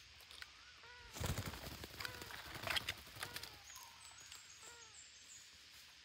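Red-breasted parakeets giving a series of short, faint chirping calls, with a brief rustle about a second in.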